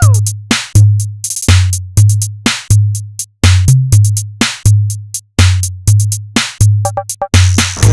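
Background music: a drum-machine beat with deep bass kicks repeating about every half second under sharp snare and hi-hat hits.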